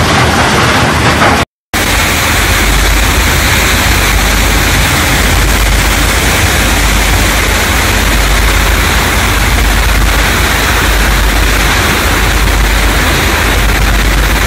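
Steady, loud machinery noise with a low hum underneath, from a sand-sludge filter press plant running. The sound cuts out for a moment about a second and a half in and then carries on.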